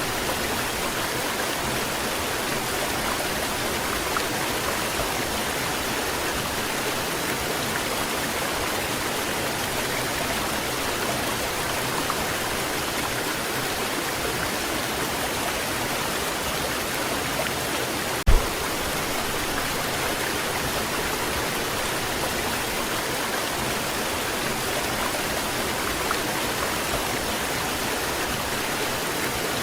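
Waterfall: water pouring and splashing in a steady rushing noise, with a single brief low thump a little past halfway through.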